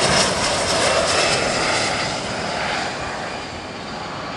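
Business jet passing low overhead on landing approach: turbofan engines give a loud rushing noise with a thin high whine, fading from about two seconds in as it goes by.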